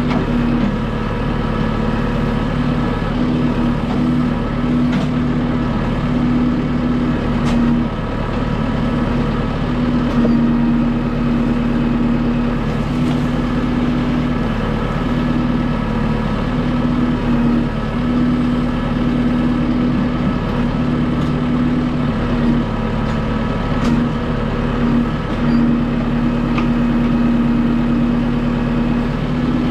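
Kubota M6060 tractor's four-cylinder diesel engine running steadily while working a backhoe, with a few faint knocks.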